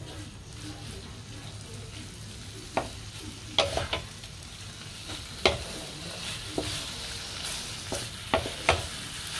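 Diced raw chicken breast sizzling in butter in a non-stick pan while a wooden spatula stir-fries it, with a handful of sharp knocks and scrapes of the spatula against the pan. The sizzle grows stronger in the second half as the pan heats back up under the fresh chicken.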